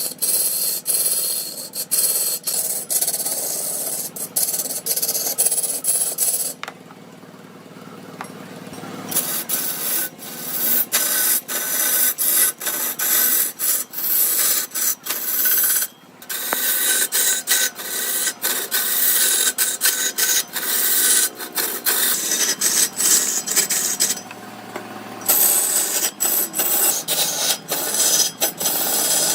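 A tool scraping and cutting into redwood: a continuous rasping noise with many sharp clicks, easing off briefly about seven seconds in and again near the twenty-four-second mark.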